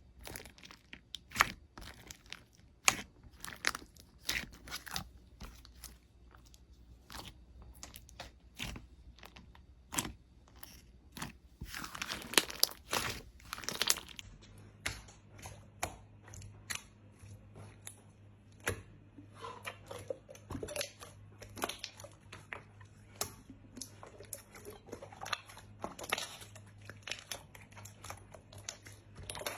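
Hands squeezing and poking slime, giving a run of sharp crackling clicks and pops, with a denser crinkling stretch about twelve seconds in. From about halfway through, a faint steady low hum sits under the clicks.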